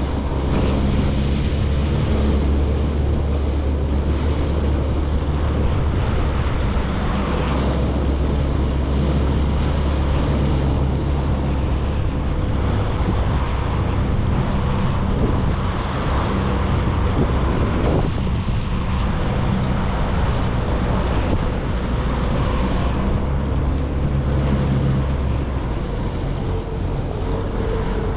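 Jet ski engine running steadily under way, with water rushing against the hull and wind buffeting the microphone; the engine hum eases near the end.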